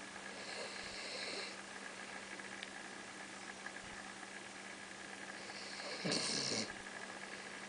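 Basset hound snoring in its sleep: a hissy snoring breath about half a second in, then a louder, fuller snore about six seconds in.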